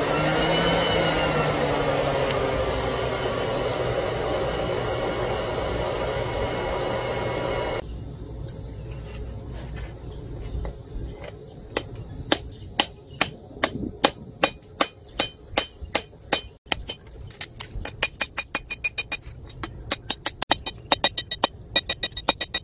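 A coal forge blowing hard under forced air, a steady rush with a motor-like whine whose pitch dips at first, cutting off about eight seconds in. Then a hammer striking a red-hot strip of motorcycle brake disc on an anvil, sharp ringing blows at about two to three a second that come faster near the end.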